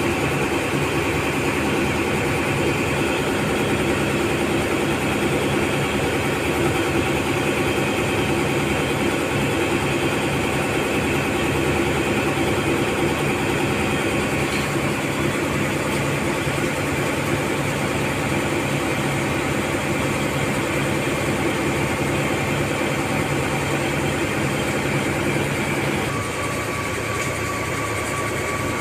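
Ship's engine running steadily, a deep drone with several steady tones. Near the end the drone drops a little and a thin steady whine comes in.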